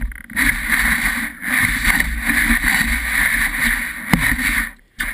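Skis and a snowboard sliding and scraping over packed snow, picked up close to the snow surface, with a low rumble underneath. A single sharp knock comes about four seconds in, and the sound cuts out near the end.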